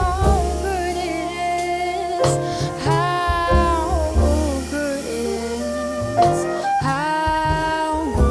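Jazz-soul band playing: bass, piano and drums under a held, gliding melody line.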